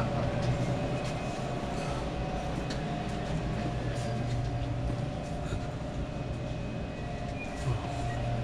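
Steady mechanical hum of machinery running in a machine shop, an even drone with a few faint ticks.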